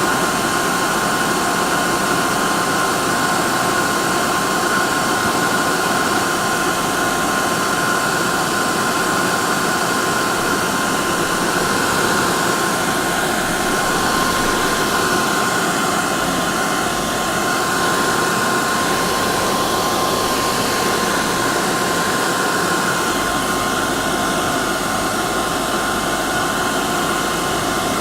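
Hair dryer running steadily: a constant rushing whoosh of air with a steady whine from the motor.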